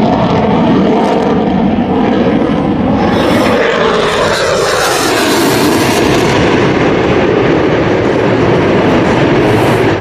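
F-22 Raptor's twin Pratt & Whitney F119 turbofan engines, loud jet noise with the afterburners lit as the fighter pulls a hard turn. The noise grows harsher and brighter about three seconds in, with a tone falling in pitch around four to five seconds.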